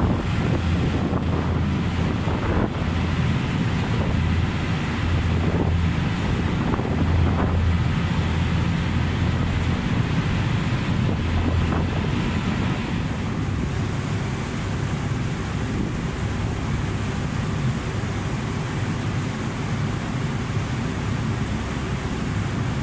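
Wind buffeting the microphone on a moving boat at sea, over the steady low drone of the boat's engine and the sea washing past.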